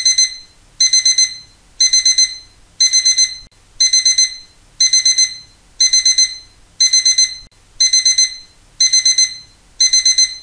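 Loud electronic alarm-clock beeping: quick bursts of four high-pitched beeps, repeating about once a second, the signal that the countdown timer has run out.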